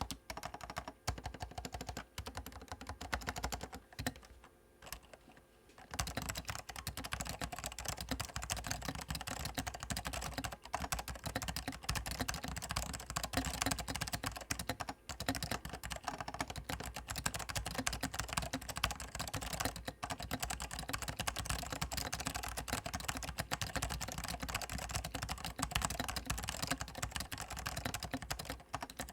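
Apple M0116 keyboard with Alps SKCM Orange and Salmon switches being typed on: scattered keystrokes for the first few seconds, then fast continuous typing. With the PCB removed and the switches handwired, the keystrokes sound much bassier and almost dampened.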